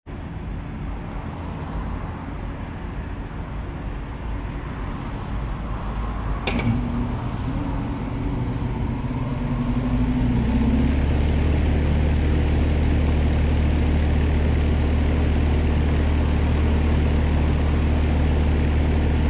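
Carrier Comfort Series 3-ton heat pump outdoor unit, with an LG scroll compressor, starting up in cooling mode: a sharp click about six and a half seconds in, then a steady low hum that grows louder around ten seconds in and settles into steady running.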